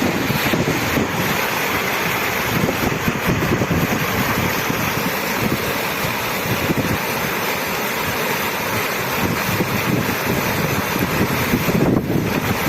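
Fast-running water rushing in a steady roar, with a brief dip near the end.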